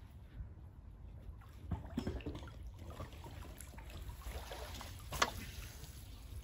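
Water trickling and splashing, with scattered scrapes and knocks and one sharp knock about five seconds in, over a steady low rumble.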